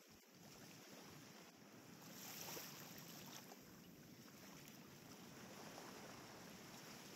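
Near silence: a faint, steady wash of wind and gentle surf on a calm beach, swelling slightly a couple of seconds in.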